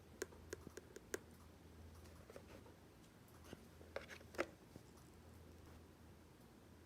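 Faint, irregularly spaced clicks and small handling knocks over a low steady hum.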